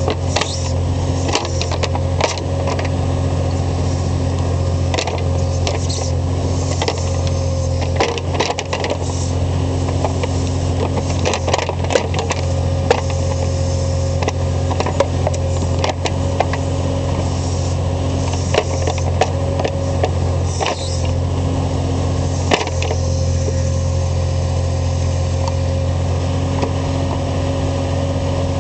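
Skid loader engine running steadily, with frequent short, sharp clicks and clanks over the drone.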